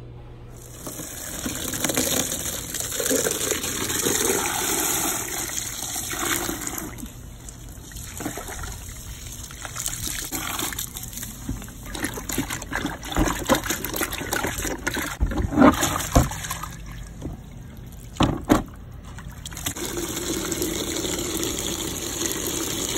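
Water running and splashing, strongest in the first few seconds and again near the end, with a run of sharp knocks and clatters in the middle.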